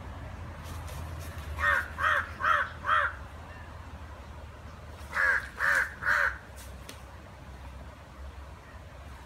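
Crow cawing: four harsh caws in quick succession, then a pause of about two seconds and three more.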